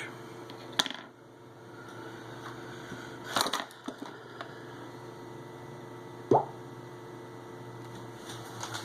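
A few sharp clicks and taps of a small screwdriver against the phone's tiny screws and metal parts, the loudest about two-thirds of the way in, over a steady low hum.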